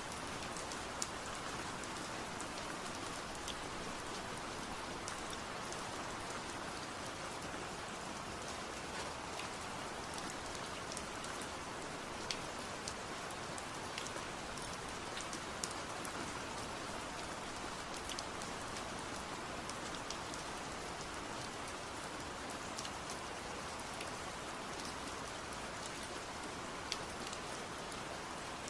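Steady rain falling, an even hiss with scattered individual drop ticks on a surface.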